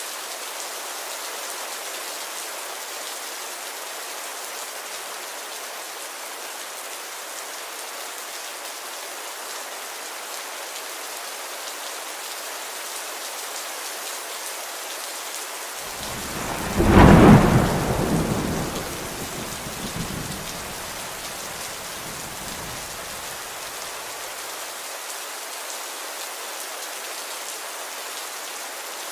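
Steady rain falling, with a loud clap of thunder just past the middle that rumbles away over several seconds.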